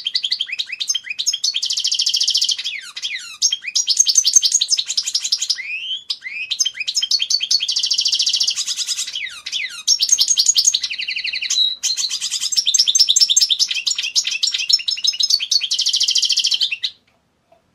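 European goldfinch singing: long, fast runs of twittering notes, trills and buzzy phrases with only brief breaks, stopping shortly before the end.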